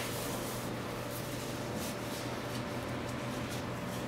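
Faint rustling and swishing of a waterproof rain skirt's fabric being wrapped around the waist, several short swishes over a steady low hum.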